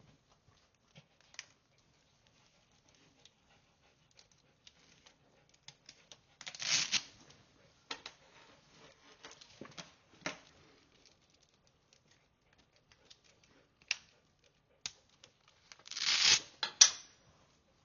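Close handling noise on a clip-on microphone: clothing rustling with scattered light taps and clicks. There are two louder rustling scrapes, one about a third of the way in and one near the end, followed by a sharp click.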